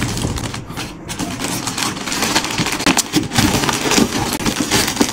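White plastic courier mailer bag being handled and torn open by hand: an irregular run of crinkling, rustling and crackling.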